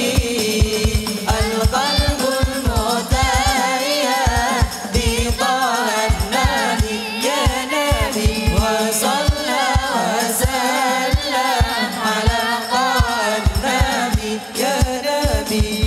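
Hadrah ensemble performing a sholawat: several male voices singing through microphones over rebana frame drums beating a fast, steady rhythm with deep bass strokes.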